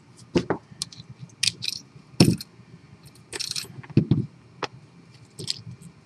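Scattered metallic clicks and clinks as a U.S. General steel padlock is handled and taken apart by hand, its shackle and small loose parts knocking together. The sharpest clink comes about two seconds in, and a duller knock follows about two seconds later.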